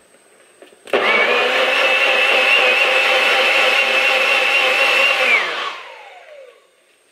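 NutriBullet personal blender motor starting abruptly about a second in and running at a steady high whine for about four and a half seconds while blending a banana, oatmeal and egg-white batter, then switched off, its whine falling in pitch as the blade spins down.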